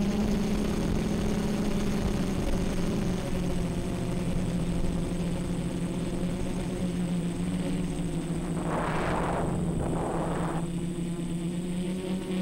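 Quadcopter motors and propellers humming steadily in flight, with two short bursts of rushing air about two thirds of the way through.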